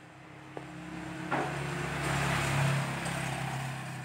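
A motor vehicle passing on the road, its engine drone swelling over the first two seconds and easing off near the end, with a short knock about a second in.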